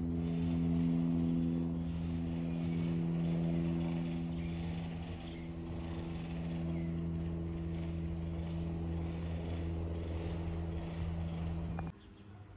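Single-engine propeller aircraft overhead, a steady drone of engine and propeller that holds one pitch, then cuts off suddenly near the end.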